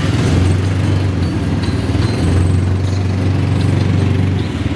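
An odong-odong tourist train's Yamaha Mio single-cylinder scooter engine running steadily while the train is under way. Its low hum dips briefly about two seconds in and eases near the end.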